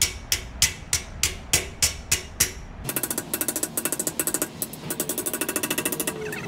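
Hand hammer striking a sheet-steel repair panel against a metal table, about three sharp blows a second, to bend a curve into it. About three seconds in the sound changes abruptly to a fast mechanical chattering of about a dozen strikes a second.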